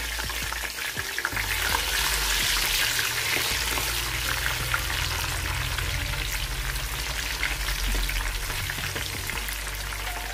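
Chopped onions sizzling and crackling in hot oil in a pot, stirred with a wooden spoon from about halfway through.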